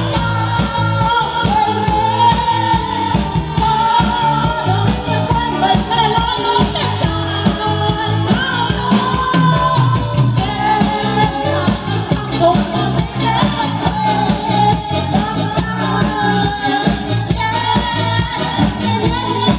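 A woman singing into a microphone over amplified dance music with a steady beat.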